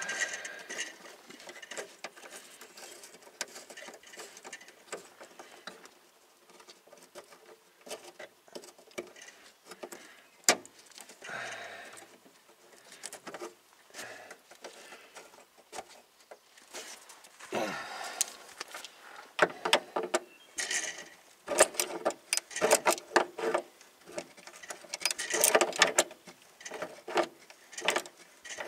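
A new steel brake line being worked by hand into its metal clips and brackets under a 1993 Jeep Cherokee: scattered small clicks, taps and rattles of metal on metal, coming quick and close together in the second half.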